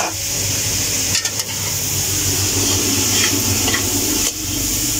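Chicken and shredded vegetables sizzling as they are stir-fried in a metal kadai. A metal slotted spoon tosses them against the pan with a steady hiss and a few faint clinks about a second in.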